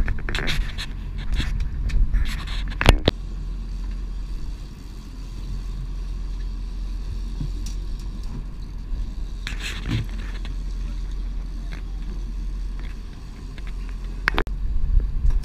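Charter fishing boat's inboard engine running at trolling speed, a steady low drone, with a few sharp knocks and clatter of gear on the deck.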